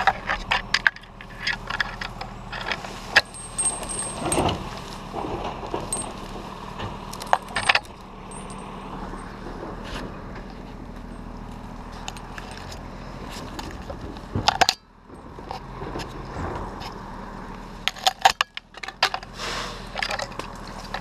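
Metal climbing hardware (carabiners and rope rings) jingling and clicking, with oak branches knocking and scraping as a climber moves through the tree. The clicks and knocks come irregularly, with one louder knock about fourteen seconds in.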